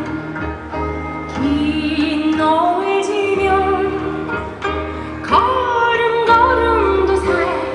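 Music with a woman singing long held notes that slide between pitches over a steady low accompaniment.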